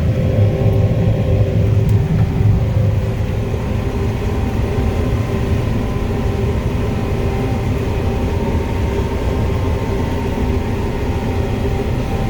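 John Deere 9500 combine harvesting corn, heard from inside the cab: a steady low rumble with a constant machine hum over it, a little louder for the first few seconds.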